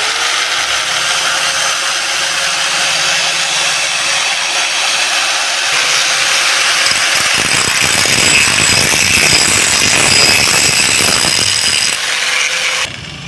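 Hitachi G10SS2 angle grinder spinning up and running at full speed with a steady whine over loud whirring: the test run of its newly fitted armature. The sound cuts off abruptly near the end.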